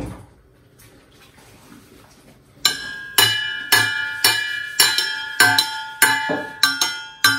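A small cup struck over and over by a baby, about twice a second, each hit ringing on briefly; the striking starts about two and a half seconds in.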